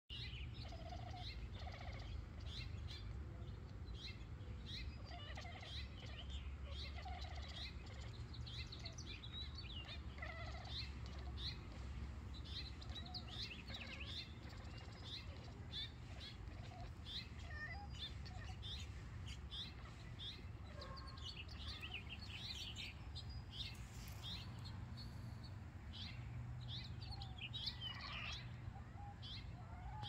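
Wild songbirds chirping, many short high chirps coming one after another, over a steady low background rumble.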